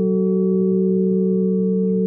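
Tower bells of the 1925 Taylor ring of three humming on after being struck: a deep hum with higher bell tones above it, slowly fading, with no fresh stroke.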